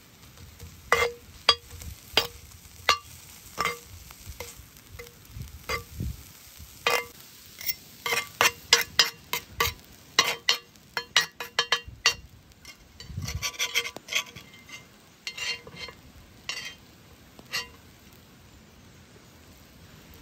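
A steel cleaver knocking and scraping on a cast-iron griddle as it chops and turns a tuna and onion filling. Each knock rings briefly. The knocks come about once a second at first, speed up into a quick run of taps near the middle, turn into a short scrape, and then thin out to a few more knocks.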